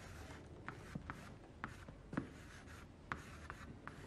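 Chalk writing numbers on a blackboard: faint scratching with a string of light, sharp taps as each figure is struck.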